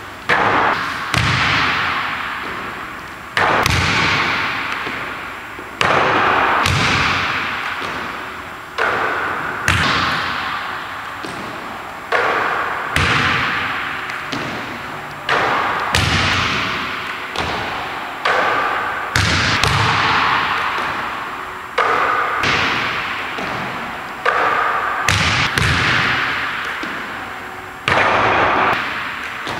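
A basketball bouncing on a hardwood gym floor during repeated jump shots. The impacts come in pairs about a second apart, roughly every three seconds, and each rings on in a long echo through the large empty gym.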